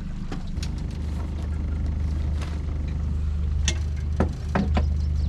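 Boat motor running steadily at trolling speed, a low hum that strengthens about half a second in, with several short knocks and clicks on the boat.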